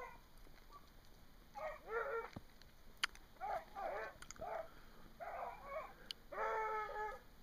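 Hounds baying while running a jumped deer: repeated drawn-out bawls, several voices overlapping, the longest near the end. A single sharp snap about three seconds in, with a fainter one about six seconds in.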